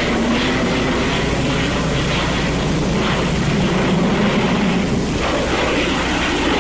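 Steady noise of a jet aircraft in flight, over the constant hiss and hum of an old film soundtrack.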